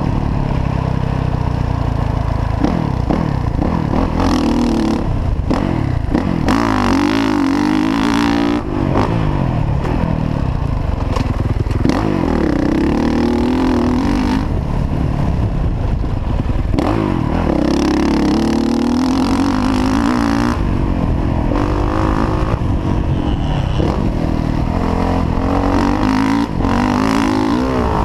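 Motocross dirt bike engine heard from the rider's helmet, its pitch rising and falling again and again as the throttle is opened and closed and gears are changed, with several long pulls at high revs. Wind rushes over the microphone.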